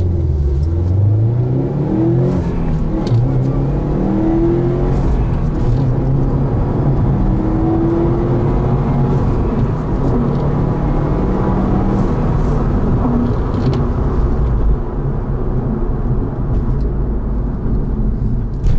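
Subaru WRX STI's turbocharged flat-four, heard from inside the cabin, accelerating hard through the gears in Sport mode on a 0–60 mph run. The engine note climbs, drops at each upshift and climbs again several times over the first half. It then settles into a steadier run as the car slows down.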